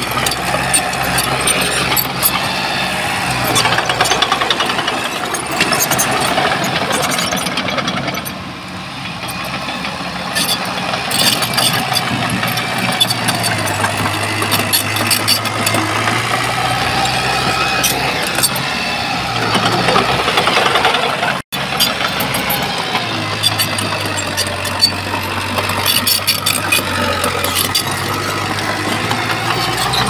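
Bulldozer's diesel engine running steadily while working, with metallic clanks and rattles over it.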